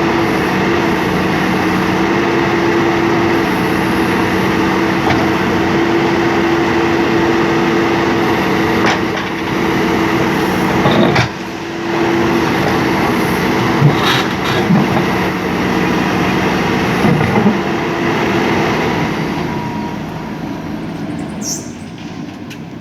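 JCB backhoe loader's diesel engine running steadily under load, with a few sharp knocks now and then. It gets quieter over the last few seconds.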